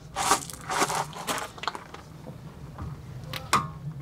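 Gravel crunching underfoot in a few short bursts as someone shifts and crouches, then two sharp clicks near the end.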